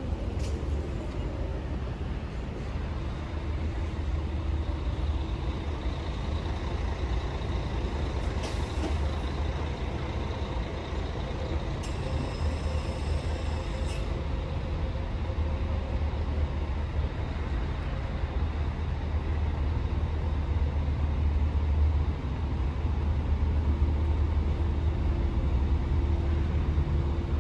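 City street traffic: a steady low rumble of car and truck engines and tyres going by, with a brief high-pitched squeal lasting about two seconds near the middle.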